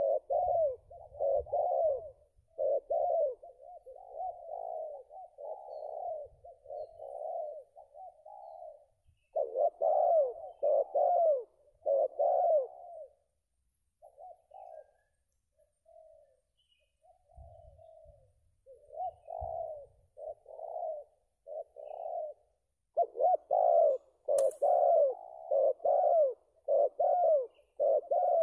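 Spotted doves cooing in runs of arched coos, about two a second. The calls thin out and grow faint for a few seconds in the middle, then come back loudest near the end. There is one sharp click late on.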